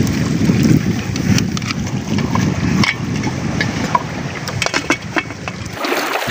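Wind blowing across the microphone, a steady low rush, with a few light clicks scattered through it. The low rush stops abruptly near the end.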